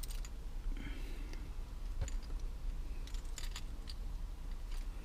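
A few faint, scattered clicks with light handling noise, like computer keys and small objects being handled.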